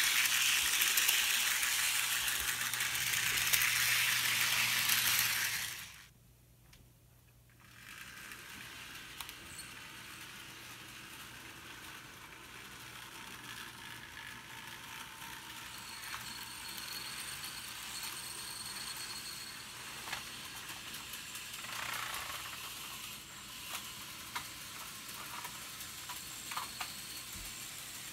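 HO-scale Thomas the Tank Engine model locomotive running along the track pulling a coal car: a steady whir and rattle of its motor and wheels with a low hum, loud for the first few seconds. About six seconds in it cuts out abruptly, then returns much fainter with scattered small clicks.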